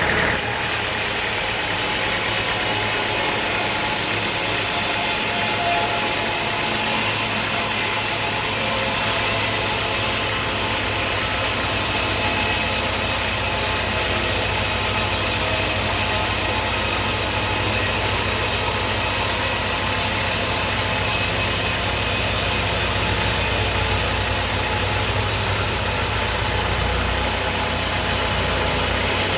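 Sawmill machinery running steadily: a continuous hiss over a low engine-like hum that grows stronger about seven seconds in.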